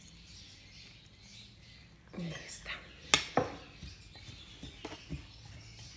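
A metal spoon stirring chopped vegetables in a glass bowl, clinking against the glass several times in the second half, with one louder clink about three seconds in.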